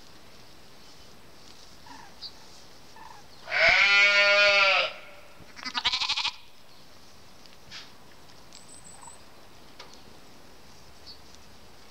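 Sheep bleating: one long, loud baa about four seconds in, followed a second later by a shorter, quavering bleat.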